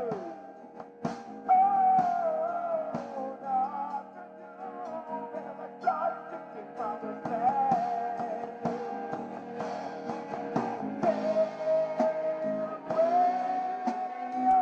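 Rock band jamming: a lead line that bends in pitch and holds long notes, over bass and drums with regular cymbal and drum hits.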